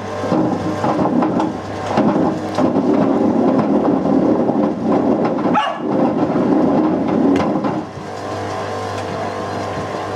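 Whirlpool WWDC 7210/1 washing machine running with a brick in its drum: a steady motor hum under a loud tumbling rumble with scattered knocks as the brick rolls and hits the turning drum. Near the end the rumble eases to a quieter, steadier running sound.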